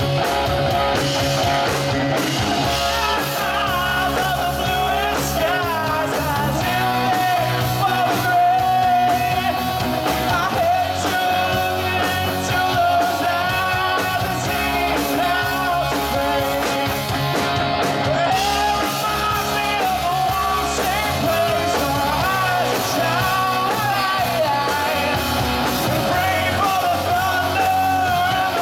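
Live rock band playing, with electric guitars and a Pearl drum kit, and a male lead singer singing into the microphone.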